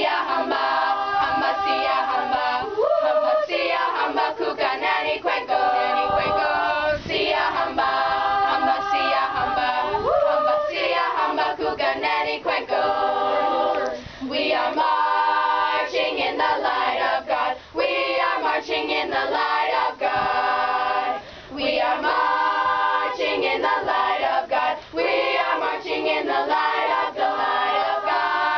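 A student chorus of mostly teenage girls singing a cappella, the phrases broken by a few brief pauses for breath.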